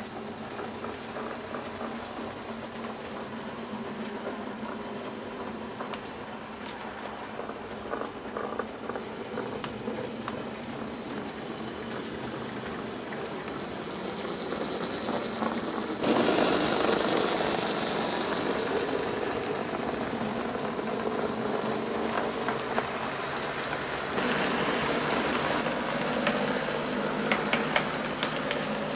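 OO gauge model trains running on the layout: the whirr of small electric motors and the rumble of wheels on track. It builds as a model railcar comes close, then jumps abruptly louder and brighter about halfway through and steps up again later. Near the end there is a run of sharp clicks from wheels over the rail joints.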